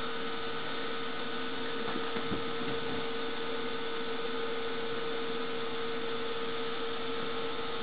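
Steady electrical hum with a constant tone over an even background hiss, with a couple of faint soft taps about two seconds in.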